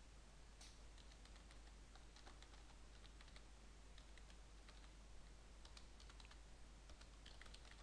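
Faint, irregular keystrokes on a computer keyboard as a web address is typed.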